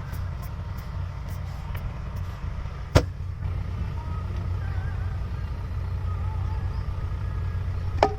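Hydraulic excavator's diesel engine running steadily, with a sharp knock about three seconds in and another near the end.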